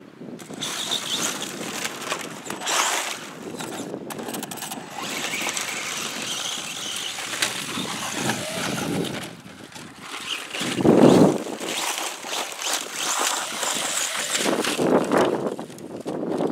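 Traxxas Slash 4x4 VXL radio-controlled truck's brushless electric drivetrain running, with tyres scrabbling on gravel and loose dirt as it drives and climbs a dirt bank. A louder low burst comes about eleven seconds in.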